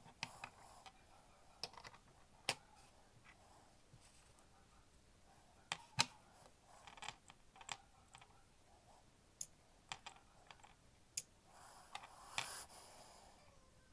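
Scattered sharp clicks and light taps of metal tools and brass watch-movement parts being handled on a bench, sped up to double speed, with a short rustle of handling near the end.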